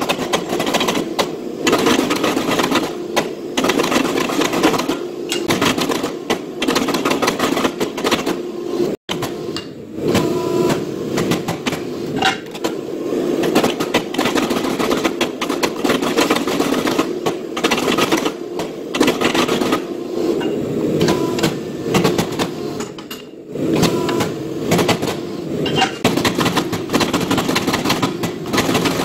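Power hammer striking a red-hot steel knife blank in a rapid, steady run of blows as the nadae blade is drawn out. The blows break off for a moment about nine seconds in.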